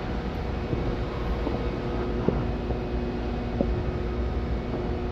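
Kawasaki ZX-4R's inline-four engine running at steady revs, with a low rumble underneath and a few faint clicks.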